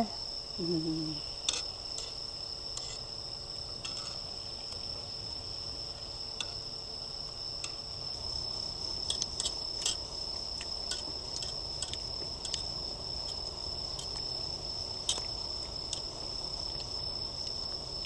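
Crickets singing one steady, unbroken high trill, with a few scattered light clicks and taps.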